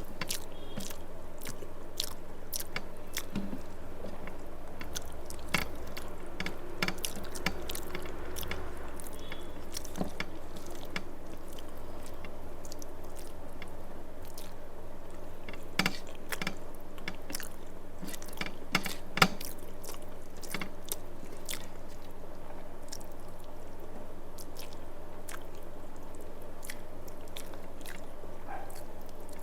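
A person chewing a mouthful of rice and fish curry close to the microphone, with moist chewing, lip smacks and scattered small clicks, over a steady low background hum.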